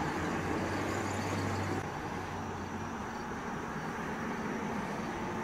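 Steady outdoor background hum and hiss, with a deeper low drone for the first two seconds that then stops.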